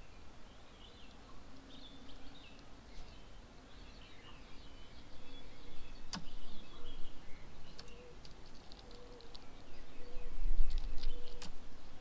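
Birds calling at an outdoor bird table: many short high chirps and whistles, a sharp click about six seconds in, and from about eight seconds a low call repeated about once a second. A brief low rumble around ten seconds is the loudest sound.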